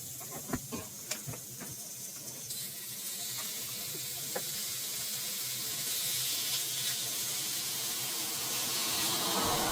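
Breaded chicken strips sizzling in hot frying oil. A few light clicks come in the first couple of seconds, then the sizzle grows louder from about two and a half seconds in, as another strip goes into the oil.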